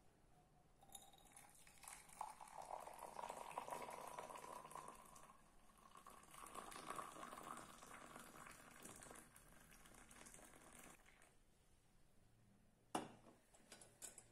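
Qishr, the Yemeni coffee-husk brew, poured quietly in a thin stream from a glass teapot into a ribbed glass cup; the pour runs for about ten seconds, then stops. A single sharp clink of glass follows near the end.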